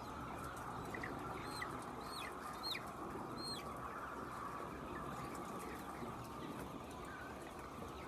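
A flock of chickens clucking in a steady murmur, with several short high chirps between about one and four seconds in.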